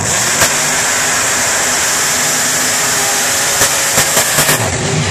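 Wheelstander drag car's engine at full power on its launch, a loud steady rush of noise that starts suddenly, with a few sharp cracks between about three and a half and four and a half seconds in.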